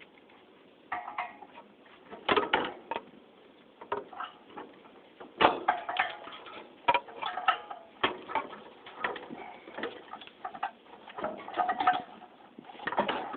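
Irregular clicks, clinks and knocks of metal ceiling-fan parts and hand tools being handled while the fan is taken apart, some strikes ringing briefly.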